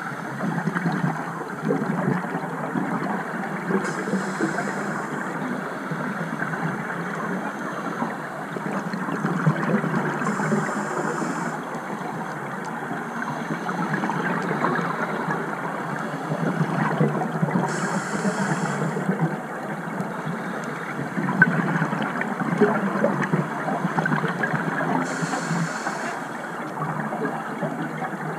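A scuba diver breathing on a regulator, heard underwater from the camera: a steady, muffled rushing noise with fine crackle, and a short hiss about every seven seconds.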